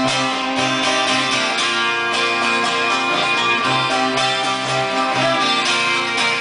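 Live folk band playing an instrumental passage: acoustic guitars strumming a steady rhythm, with a round-bodied plucked string instrument and a fiddle.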